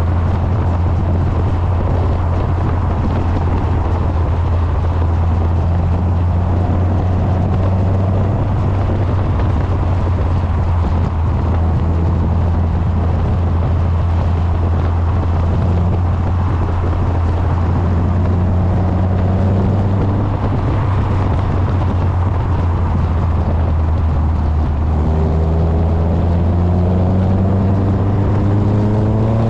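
Westfield sports car's side exhaust droning steadily while cruising, heavily buffeted by wind on the microphone. Near the end the engine note climbs steadily as it accelerates.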